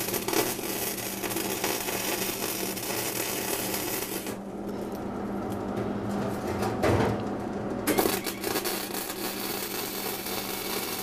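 Electric arc welding with a Hobart welder on rusty scrap steel: two runs of arc noise, the first about four seconds long, the second starting about eight seconds in, with a quieter pause between. The arc is spitting sparks because the metal wasn't ground down enough, so the weld burns off the rust as it goes.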